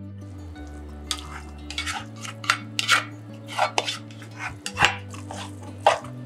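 A rice paddle scraping and knocking against a pot as cooked rice is turned out into a wooden sushi tub: a string of irregular scrapes and taps, the sharpest about three, five and six seconds in.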